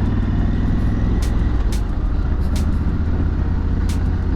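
Honda CRF1100L Africa Twin's parallel-twin engine running steadily while riding, with wind and road noise.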